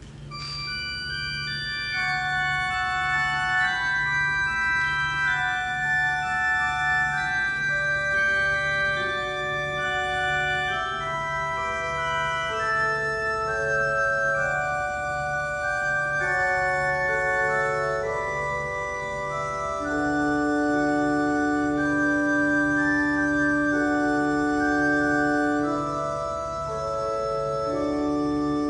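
Organ playing a slow offertory piece of long held chords, starting about half a second in.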